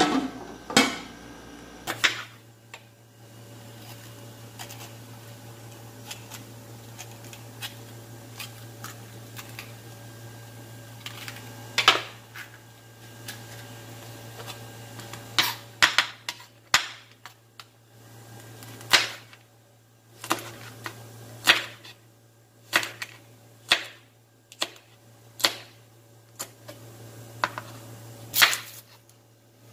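Kitchen knife striking a wooden chopping board while a red bell pepper is sliced: sharp single knocks, scattered at first and coming about once a second in the second half, over a steady low hum.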